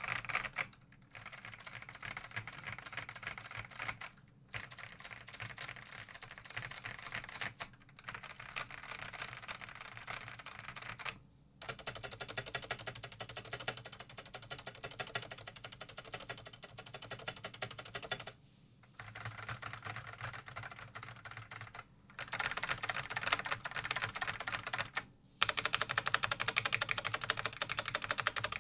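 Typing on a new-old-stock Dell AT102W keyboard with black ALPS SKCM "bamboo" switches: a dense, fast stream of key strokes, broken by brief pauses every few seconds. The typing grows louder over the last several seconds.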